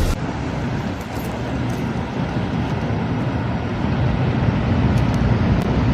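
Steady low rumble of a motor vehicle, with a sudden change in the sound at the very start.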